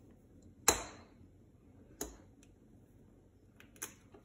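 Sharp taps against a stainless steel mixing bowl, three in all, the first and loudest less than a second in, the others about two and four seconds in.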